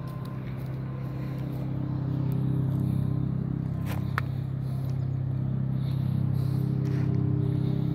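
A steady low motor hum that grows slowly louder, with a couple of faint clicks about four seconds in.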